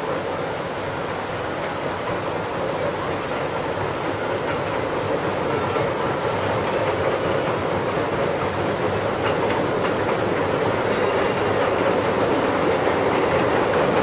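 Steam train running across a steel girder bridge, its rumble growing steadily louder as it approaches.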